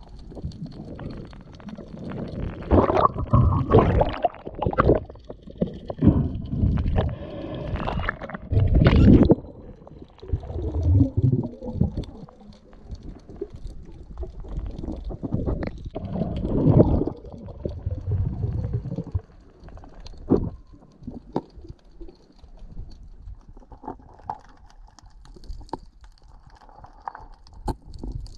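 Underwater sound picked up by the diver's camera while a gloved hand works through kelp and rock: irregular muffled gurgling rumbles of moving water with scattered knocks. It is loudest in the first two-thirds and grows fainter near the end.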